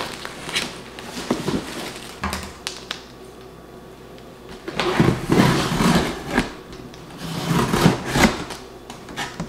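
A large cardboard shipping box knocked and shifted about on a counter, then its packing tape cut and torn open with a small blade, in two longer stretches of scraping and tearing about halfway through and near the end.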